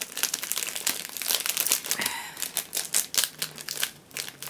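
Plastic snack wrapper crinkling and crackling as it is handled and torn open by hand, with a rapid, irregular run of crackles.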